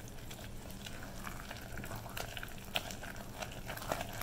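Hot peanut brittle candy syrup foaming up from freshly stirred-in baking soda, worked fast with a spatula in a glass bowl: a faint bubbling crackle with scattered clicks.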